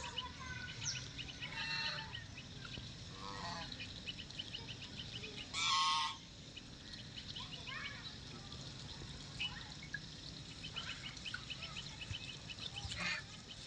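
White call duck quacking: short scattered calls, with one loud, longer quack about six seconds in.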